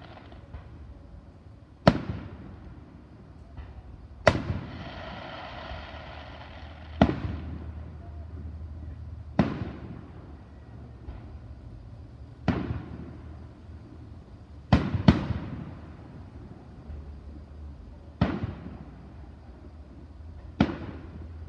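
Aerial fireworks shells bursting overhead: about nine sharp bangs, one every two to three seconds, with a quick double bang about two-thirds of the way through. Each bang trails off in echo.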